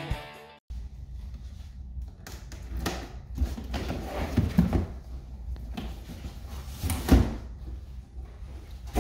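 A large cardboard box being handled and opened on a countertop: cardboard scraping and rubbing with a few dull thumps, the loudest about seven seconds in.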